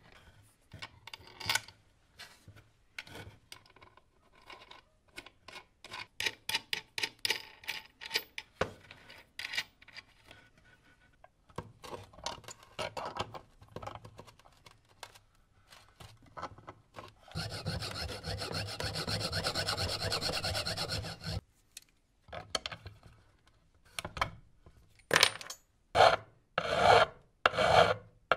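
Small metal tool clicks and scrapes on a bolt and nut as they are tightened with pliers and an adjustable wrench, a steady noise for about four seconds midway, then a steel knife blade stroked back and forth across a board, about one and a half rasping strokes a second, the loudest sounds near the end.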